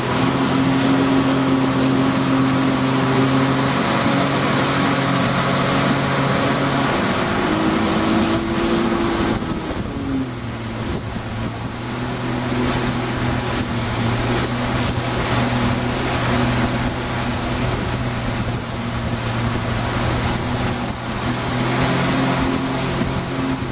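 Motorboat engine running steadily at towing speed, with water rushing past the hull and wind on the microphone. The engine note shifts about eight to ten seconds in and settles slightly lower.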